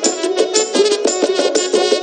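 Instrumental break in a Bangla folk song: a fast melody of quick repeated note attacks over held tones, from a band of trumpet, harmonium and plucked folk lute.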